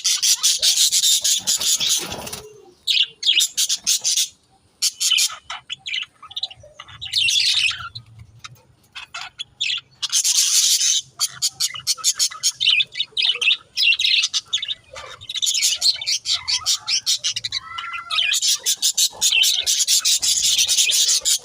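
Budgerigars chattering: rapid high chirps, clicks and warbles in bursts of a second or two, broken by short pauses.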